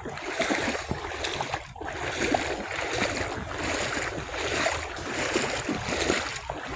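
Legs wading through floodwater, a sloshing swish that swells and fades about once a second with each stride, over low wind rumble on the microphone.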